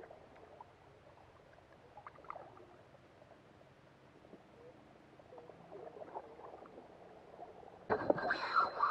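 Faint lapping and small ticks of water against a kayak hull. Near the end a much louder, busier stretch of sound starts suddenly, with a thin steady high whine in it.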